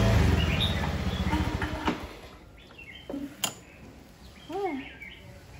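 Motor scooter engine idling, then switched off about two seconds in. After it stops come a single sharp click and a few short rising-and-falling chirping calls.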